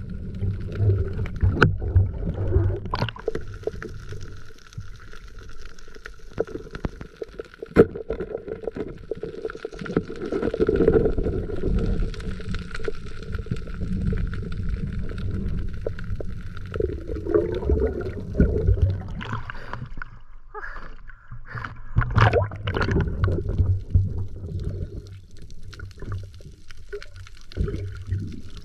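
Muffled underwater water noise picked up by a diver's camera: a low gurgling rumble of moving water, with many scattered clicks and knocks. It surges louder twice.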